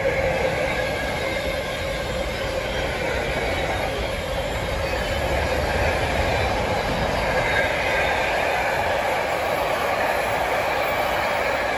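Freight train of car-carrier wagons and container flats rolling across a concrete railway bridge: a steady rumble of wheels on rail, with thin high wheel-squeal tones running through it.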